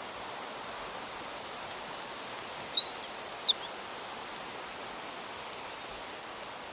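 A small songbird sings one short phrase of quick high chirps and a rising whistle, about two and a half seconds in, over a steady outdoor hiss.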